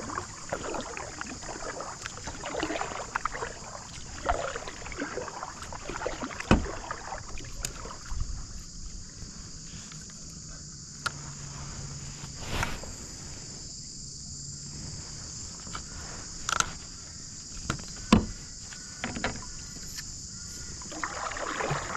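Kayak paddle strokes splashing and dripping in the water, easing off after about eight seconds into a quieter stretch with a few sharp knocks, then paddling again near the end. A steady high insect buzz runs underneath.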